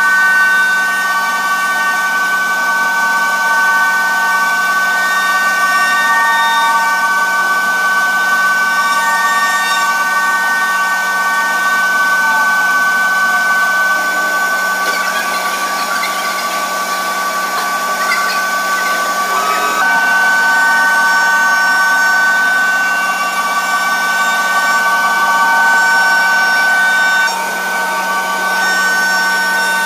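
CNC router spindle running at a steady high whine while its bit cuts into wood door panels, with rougher cutting noise swelling in the middle. The sound drops a little in level near the end.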